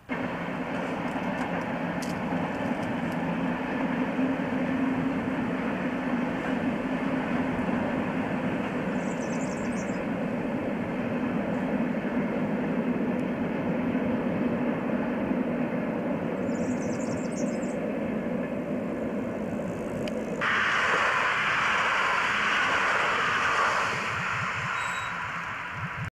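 Passenger train running past, a steady rumble of wheels on rails. About twenty seconds in the sound changes abruptly to a louder, hissier noise, which fades away near the end.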